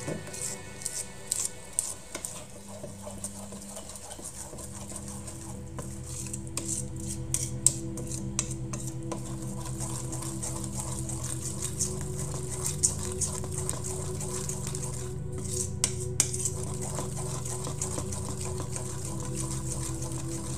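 Spatula stirring thick flour-and-cornstarch batter in a stainless steel bowl: wet squishing with many irregular clicks and taps as it scrapes against the bowl, over a steady low hum.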